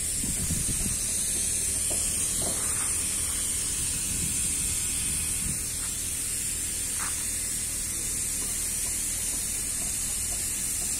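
Steady background noise of a shipyard: a constant high hiss over a low, even hum, with a couple of faint knocks about two and seven seconds in.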